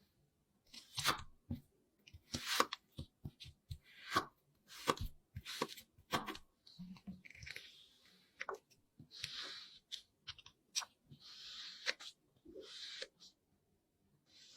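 Kinetic sand being worked by hand or tool: a series of gritty crunching and scraping strokes, roughly one a second, some short and sharp, some longer hissing scrapes.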